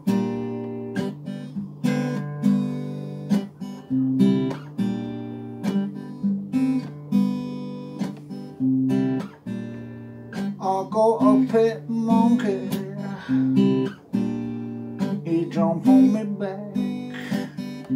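Acoustic guitar strummed in a steady rhythm, chord after chord, in an instrumental passage of a folk-style song.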